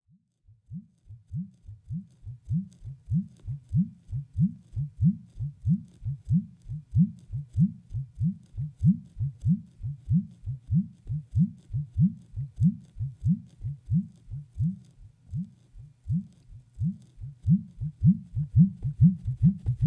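A long run of deep, low thumps, about two a second, each with a short upward swoop in pitch. They grow louder and come faster near the end, then stop abruptly.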